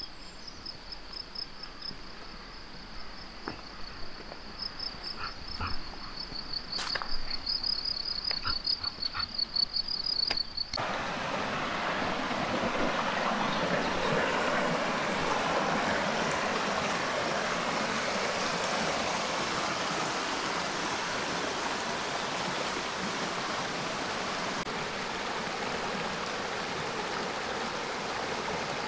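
A high, pulsing insect trill with a few sharp clicks. About ten seconds in, it cuts abruptly to the steady rush of a mountain stream.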